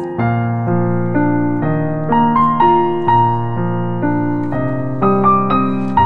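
Background piano music: a slow melody of held notes, a new note about every half second.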